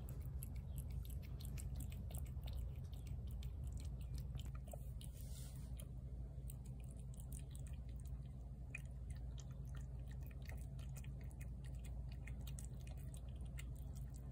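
Tabby cat chewing wet seafood cat food close to the microphone: a run of small wet clicks and smacks, over a steady low hum.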